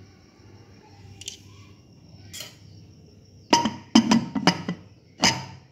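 Metal pressure cooker lid being fitted and closed on the pot: a few light clinks, then a quick run of about five sharp metallic knocks a little past the middle and one more clank near the end.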